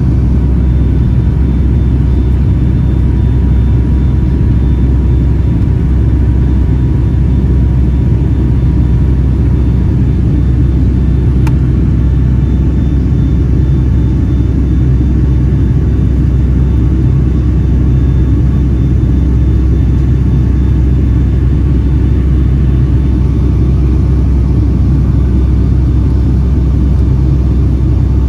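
Steady low rumble of a Boeing 757-200's cabin noise from engines and airflow, unchanging throughout, with one brief click about eleven seconds in.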